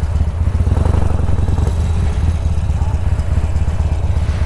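Cruiser motorcycle's engine running at low revs while the bike rolls slowly, a steady low pulsing beat.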